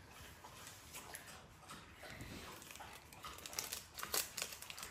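Foil trading-card packs crinkling faintly as they are handled and torn open, with a few sharper crackles in the last second or two.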